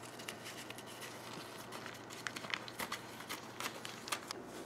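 Thin plastic bag crinkling as it is handled and cut open with scissors: a scatter of light, irregular crackles and snips.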